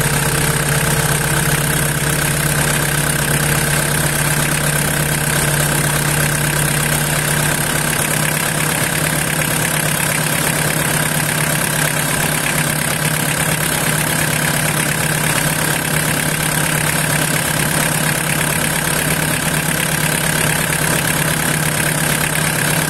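An engine idling steadily with a constant hiss of running water, while water flushes through the cooling system from the radiator and out of the engine-block drain. It holds the same even drone throughout.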